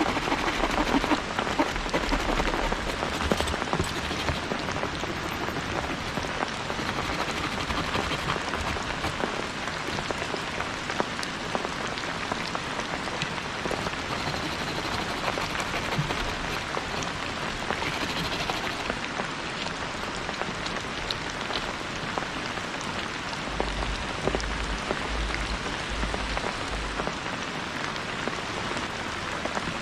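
Steady rain falling, a dense patter of drops that goes on without a break.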